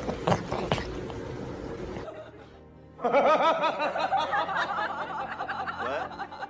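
Background music with laughter over it. The music grows denser and wavering about three seconds in.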